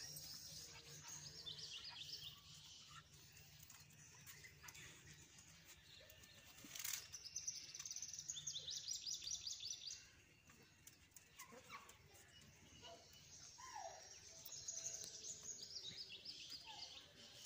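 Faint birdsong: bursts of rapid high chirps, loudest about seven to ten seconds in.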